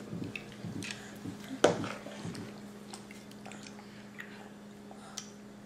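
A young child eating ice cream: small wet chewing and mouth sounds, with a sharp knock about a second and a half in.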